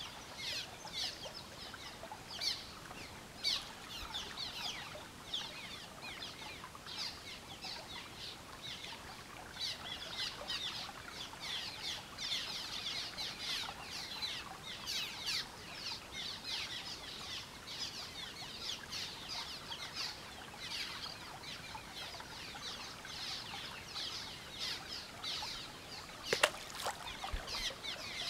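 Many small birds chirping, a dense run of short high falling chirps. A single knock sounds near the end.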